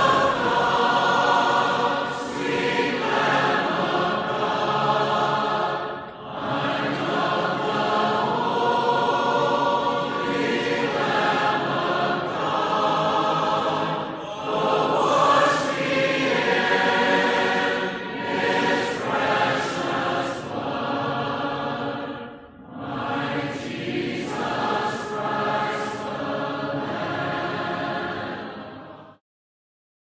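A cappella choir of mixed voices singing together without instruments, in long held phrases with short breaks between them, cutting off abruptly just before the end.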